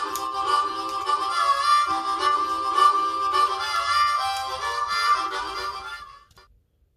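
Harmonica (blues harp) music: a melody over a held note, fading out about six seconds in.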